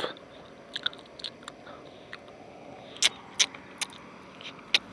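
Faint, irregular sharp clicks and crunches over a quiet background hiss, several coming close together about three seconds in and again near the end.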